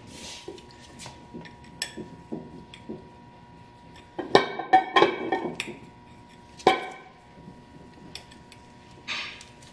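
Metal clinking and tapping as the two halves of an ARB air locker's clamshell case are worked together by hand with a small dental pick, easing the seals in. Scattered light taps, a cluster of ringing clinks about four to six seconds in, and a sharp clink near seven seconds.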